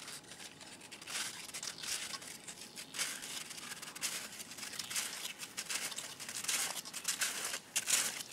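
Snowshoe steps on snow, a dense, irregular crunching and crackling that starts about a second in and goes on.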